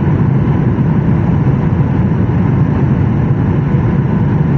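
Boeing 737-800 airliner landing: a steady, loud low rumble of engine and airflow noise, with no sharp changes.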